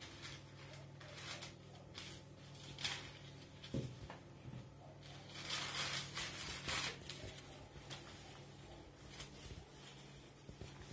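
Soft rustling, scraping and light knocks of hands handling rolled-out pizza dough on a wooden board as it is unrolled off a wooden rolling pin and smoothed flat, with a louder run of rustling about halfway through. A steady low hum sits underneath.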